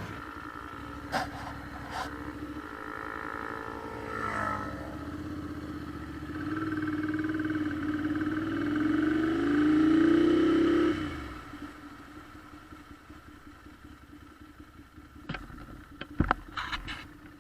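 Motorcycle engine running and accelerating, its pitch climbing for several seconds, then dropping away abruptly about eleven seconds in. A few sharp clicks come near the end.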